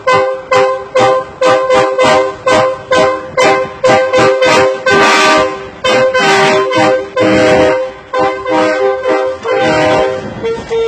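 Truck horn blown in short rhythmic blasts, about three a second, alternating between a couple of pitches like a tune being honked.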